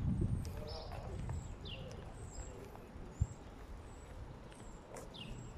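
Birds chirping: short, high, falling chirps about once a second, over a low rumble that eases after the first second, with a single sharp knock about three seconds in.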